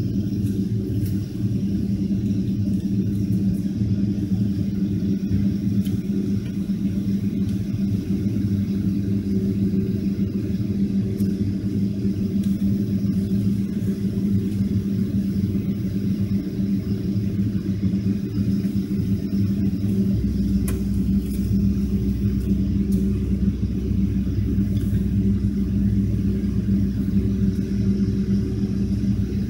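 Steady low cabin hum inside a parked Boeing 757-200, with a constant drone and no engine spool-up. A deeper rumble joins about twenty seconds in and stays steady.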